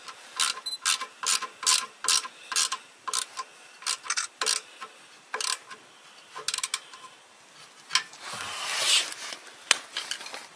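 Ratchet wrench clicking in a steady run of short strokes, about two to three clicks a second, as a nut on the exhaust pipe's flange joint is turned, then a few scattered clicks. A longer rustling scrape of gloved hands and tools on the pipe comes about eight seconds in.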